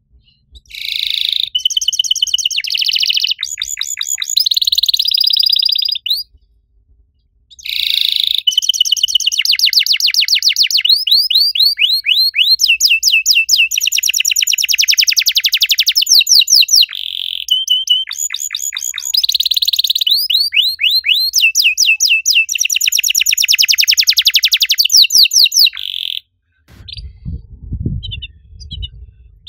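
Domestic canary singing a long, high-pitched song of rapid trills and quickly repeated chirping notes. It breaks off for about a second and a half some six seconds in, then sings on without a break and stops about three seconds before the end.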